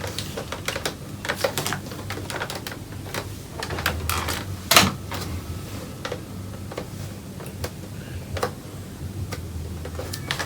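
Irregular clicks and light knocks of objects being handled on a workbench, with one louder knock about five seconds in, over a low steady hum.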